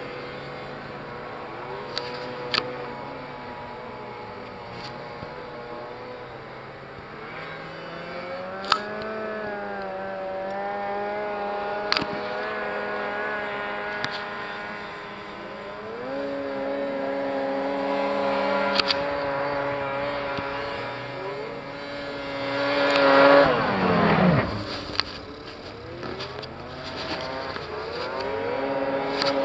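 Several snowmobile engines running and revving, pitch rising and holding as the sleds accelerate. About 23 seconds in, one passes close by, loud, its pitch dropping sharply as it goes. A few short sharp clicks are heard along the way.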